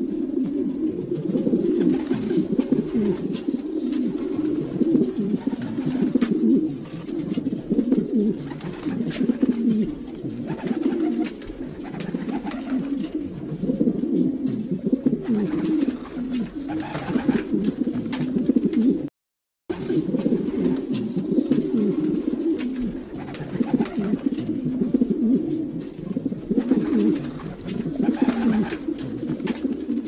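Many pigeons cooing over one another in a steady chorus of low, overlapping coos, broken by a brief dropout to silence about two-thirds of the way through.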